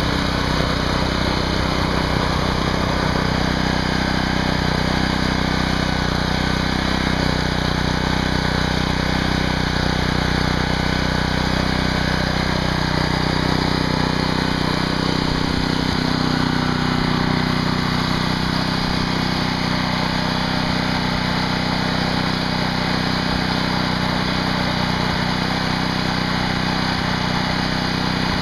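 A small engine running steadily at one constant speed, its pitch neither rising nor falling.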